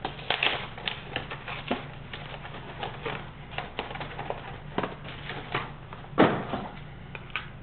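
Irregular rustling, crinkling and light clicks of a 2007 Upper Deck Black baseball card box and its packaging being opened and handled, with one louder, longer rustle about six seconds in.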